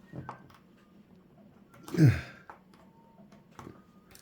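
A person's sigh about two seconds in, falling in pitch, with a few faint clicks of small plastic pen parts being handled.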